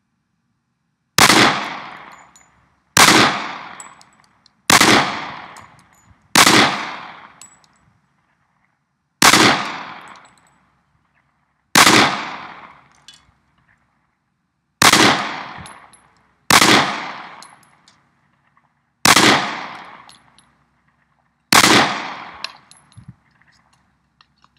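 Glock 30 Gen 4 .45 ACP pistol firing ten single shots, spaced irregularly about one and a half to three seconds apart, each shot trailing off in an echo.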